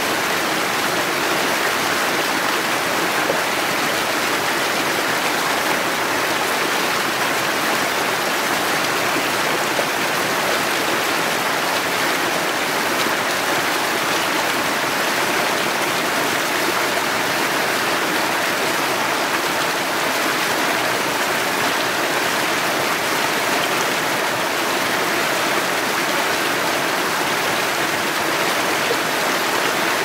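Small mountain stream cascading over mossy boulders into a shallow pool: a steady, even rush and splashing of water that does not change.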